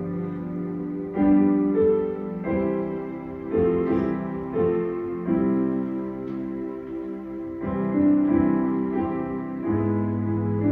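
Slow solo piano music, with a new chord struck about every second.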